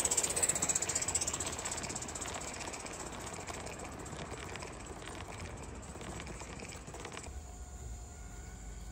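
O gauge live steam model locomotive, a GNR Atlantic, running with a fast hiss of steam and rapid exhaust beats, loudest at the start and fading. The hiss stops abruptly about seven seconds in, leaving a quieter low hum.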